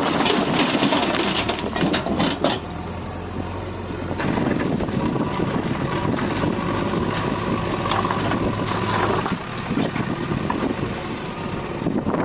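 Backhoe loader's diesel engine running steadily, with a few sharp knocks in the first couple of seconds and a higher whine from about five to nine seconds in.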